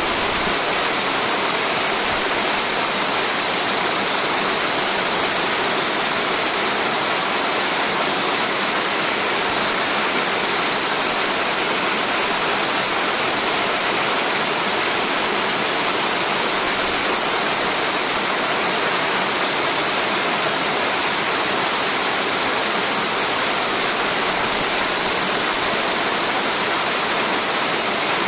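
Waterfall: a steady, dense rush of falling water with no changes.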